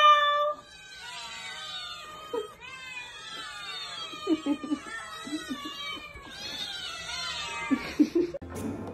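A cat's loud drawn-out yowl cuts off about half a second in; then a litter of kittens meow over one another, many short high cries falling in pitch and overlapping without a break.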